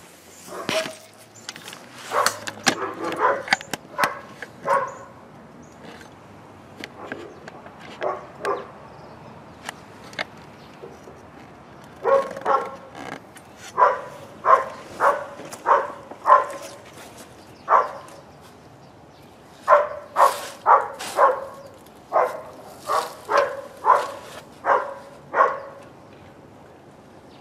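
A dog barking repeatedly in bouts of several quick barks, with pauses of a few seconds between the bouts.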